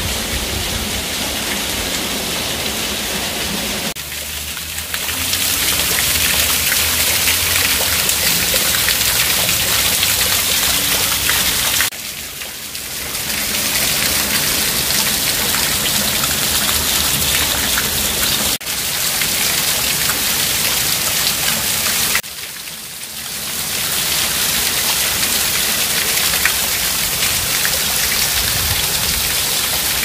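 Water of a small cascade falling over stacked boulders and splashing into a shallow rocky pool, making a steady, loud hiss. It drops away briefly three times.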